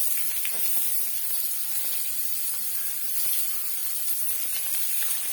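Chopped onion frying in hot oil in a pan: a steady sizzling hiss.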